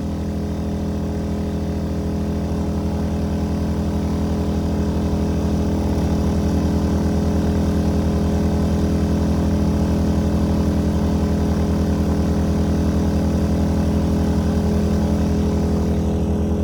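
A-iPower SUA1500i 1500-watt inverter generator running steadily with an even engine hum, growing louder over the first several seconds. It is carrying the load of an RV plugged into it and does not stumble.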